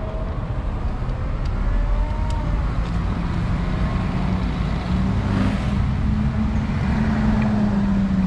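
City road traffic: a continuous low rumble of cars and other motor vehicles, with one engine's hum coming in about three seconds in, rising slightly in pitch and falling back near the end. A vehicle passes close about five seconds in.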